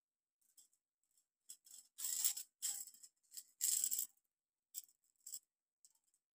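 Short, scratchy scrabbling bursts of a cat's paws and claws on a wooden floor as it swipes and pounces at a cockroach, the longest two about two and four seconds in.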